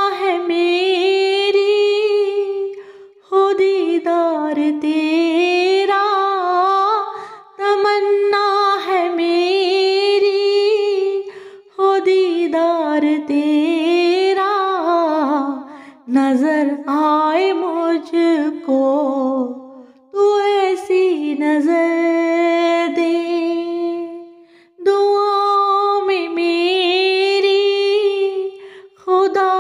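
A woman singing a devotional dua unaccompanied, in phrases of a few seconds with long held notes and vibrato, broken by short pauses for breath.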